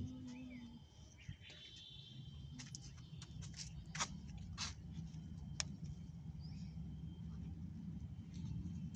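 Outdoor ambience: a low steady rumble with a few sharp clicks near the middle and faint, scattered bird calls.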